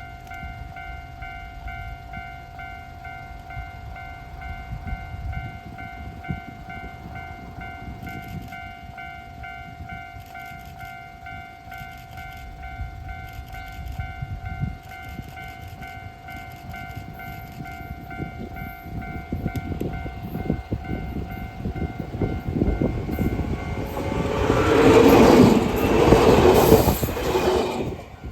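Level-crossing warning alarm ringing in steady, pulsing tones, then an Enshu Railway 1000-series electric train passing over the crossing near the end with a loud rush of wheel and running noise, the loudest part.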